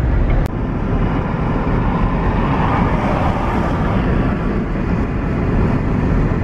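Steady road and wind noise inside a moving car's cabin, a dense low rumble that swells briefly about three seconds in.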